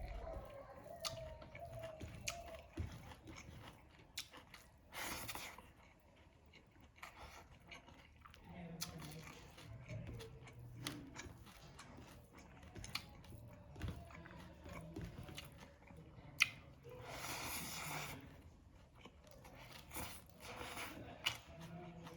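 A person eating fried fish close to the microphone: chewing and crunching, with many short mouth clicks and smacks.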